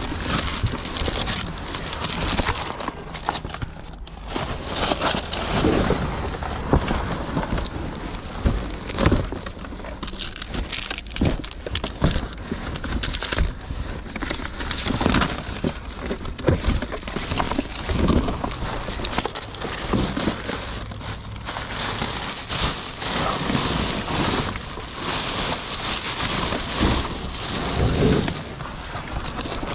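Plastic bags and cardboard rustling and crinkling close to the microphone as items are rummaged through, with irregular crackles and small knocks.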